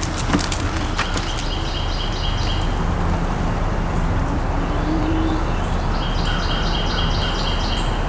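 Jetson Bolt Pro electric bike rolling over dirt: a steady rumble of tyre and wind noise with a low hum, and a few clicks in the first second. A high, rapid chirping trill, likely a bird, sounds twice in the background.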